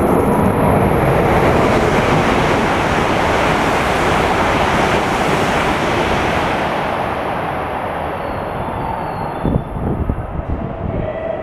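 E7-series Shinkansen train passing through the station at speed without stopping: a loud rush of air and rolling noise that fades over the last few seconds as the train draws away. A few sharp thumps come near the end.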